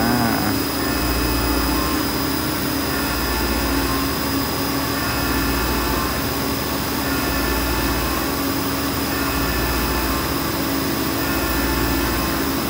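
CNC milling machine cutting stainless steel: the spindle and cutter run steadily, with flood coolant spray and an air blast hissing over the cut. The cutting noise swells and eases in a regular rhythm about once every second and a half as the peel-milling toolpath loads and unloads the cutter.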